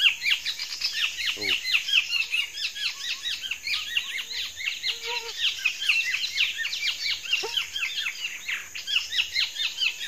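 Dense, rapid chirping of small forest birds: many short, high calls overlapping several times a second without a break.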